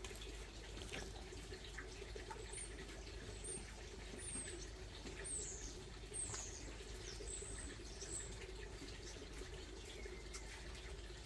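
Bird calling: a series of about eight short, high, thin chirps, each falling in pitch, between about two and eight seconds in, over a steady low background noise.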